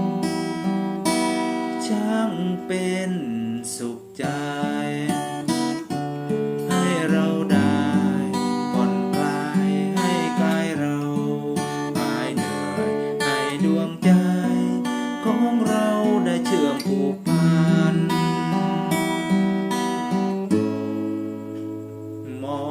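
Instrumental music led by strummed and plucked acoustic guitar.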